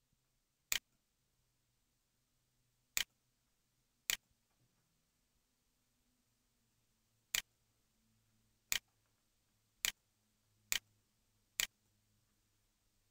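Computer mouse button clicking: eight sharp single clicks at irregular intervals, a few seconds apart at first and then about one a second near the end.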